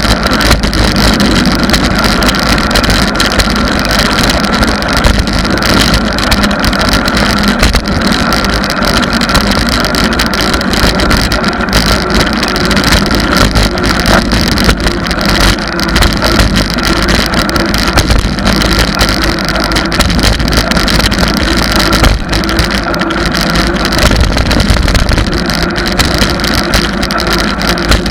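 Loud wind rush on the microphone with the tyre and road rumble of a bicycle riding over cracked asphalt, a steady roar with no breaks.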